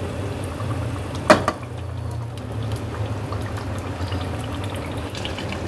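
Mutton gravy simmering and bubbling in a pot under hot spinach purée on a low flame, over a steady low hum. A single sharp knock comes about a second in.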